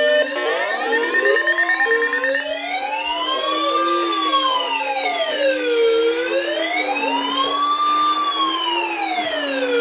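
A wailing siren whose pitch rises and falls slowly, with about four seconds per cycle, over a steady lower tone. At the start several rising sweeps overlap.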